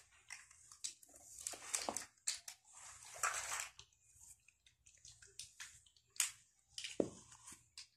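Long hair being combed and handled close to the microphone: irregular, short, scratchy swishes of the comb and hands through the hair, with a couple of sharper knocks near the end.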